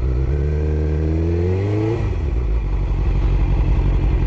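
A 2002 Suzuki GSX-R750's inline-four engine pulls at low speed, its note rising over a second and a half. About two seconds in it drops suddenly to a steady idle.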